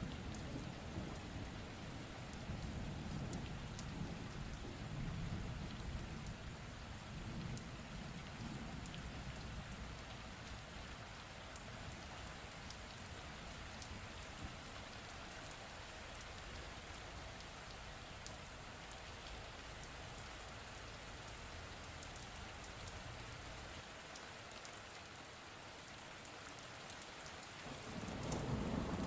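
Steady rain falling, with a low rumble of thunder dying away over the first several seconds. A new roll of thunder builds in the last second or so.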